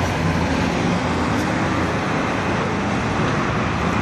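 Automated side-loader garbage truck's engine running steadily as the truck pulls away, with the hum of street traffic underneath.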